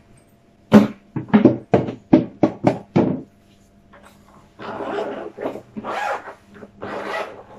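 A quick series of about eight short sharp taps or knocks. Then, from about four and a half seconds in, three scratchy drawn-out pulls of the zipper on a soft-shell gimbal hardcase as it is unzipped.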